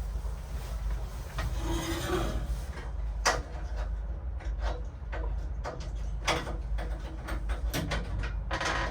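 Hand tools and lock hardware being handled: a scraping rub about two seconds in, then a run of sharp clicks and knocks, over a steady low rumble.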